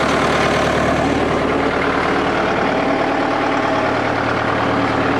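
Deutz-Fahr 4.50's diesel engine idling steadily, freshly started straight on the button now that a bad earth strap, the cause of its not starting, has been bypassed with a new earth cable.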